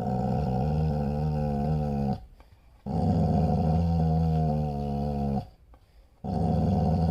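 A dog growling, low and drawn out, in long stretches of about two and a half seconds with short pauses between: a protective warning growl while guarding its owner.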